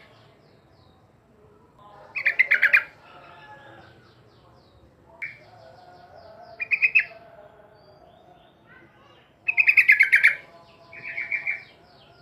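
Yellow-vented bulbul (trucuk) singing: four loud bursts of quick bubbling notes a few seconds apart, with fainter chirps from other birds between them.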